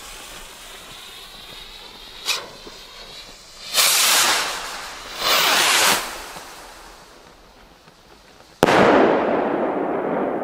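Two Weco Cryptic firework rockets in flight and bursting: their launch hiss fades, a small pop comes about two seconds in, and two loud noisy bursts of about a second each follow as the effects break. Near the end a single sharp bang from a rocket's report dies away slowly with echo.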